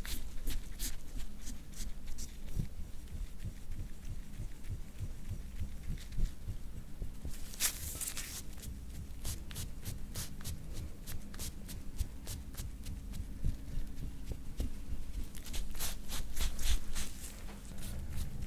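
Metal scraping tool drawn in repeated strokes over oiled skin on a back, a soft rubbing swish with each stroke; one longer, louder stroke comes about eight seconds in, and a quick run of strokes near the end.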